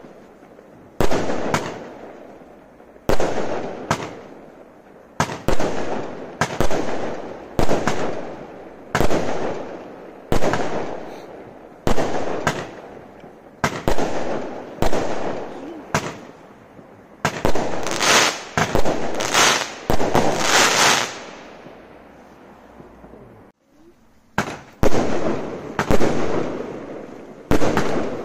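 Consumer firework barrage cake firing shot after shot, a sharp bang about every second, each trailing off in crackling. The crackle grows denser around twenty seconds in. The firing pauses briefly after about 22 seconds, then resumes.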